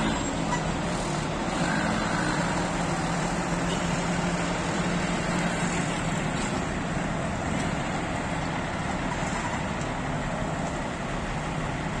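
Heavy diesel engines running steadily as a wheel loader and girder-carrying multi-axle trailers move slowly, with a constant low engine drone over road-traffic noise.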